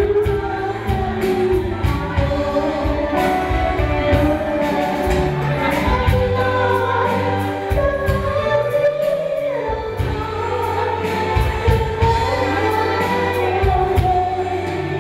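A woman singing into a handheld microphone through the hall's PA, with electronic keyboard accompaniment and a steady beat.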